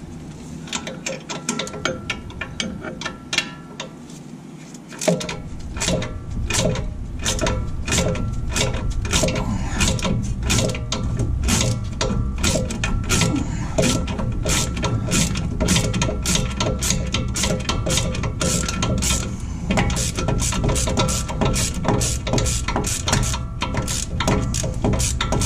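Socket ratchet with an extension clicking as it turns the lower shock-absorber mount bolt on a Jeep TJ's axle, undoing it to remove the worn shock. The clicks come only now and then at first, then run fast and steady from about five seconds in.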